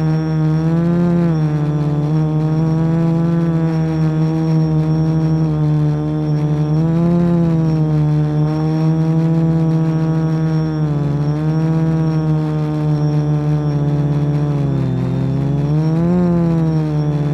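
Quadcopter's electric motors and propellers buzzing, heard up close from the camera mounted on the craft, the pitch swelling and dropping several times with the throttle.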